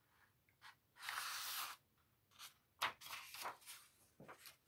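A page of a hardcover picture book being turned by hand: a soft sliding swish lasting under a second, then several light paper rustles and clicks as the page lifts and flips over.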